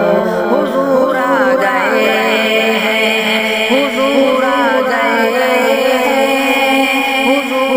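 A naat, an Islamic devotional song, sung as a wordless melodic vocal line that glides up and down over a steady held drone.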